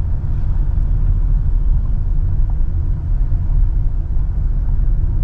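Steady low rumble of a car driving over a rough, damaged road, heard from inside the cabin.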